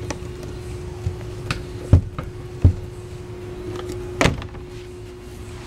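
Fiberglass in-floor ski storage hatch on a deck boat being opened by hand: a few light clicks, two dull thumps about two seconds in, and a sharper knock about four seconds in as the lid is lifted, over a steady faint hum.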